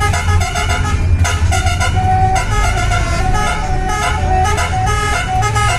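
Basuri telolet multi-tone horn on a Rahayu Sentosa coach playing a continuous tune of quick stepped notes, over the low running sound of the bus engine.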